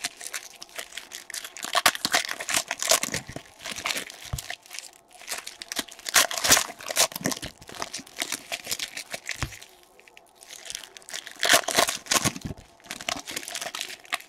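Crinkly plastic trading-card packaging being torn open and scrunched by hand, a dense run of uneven crackles and tears that eases briefly near the middle.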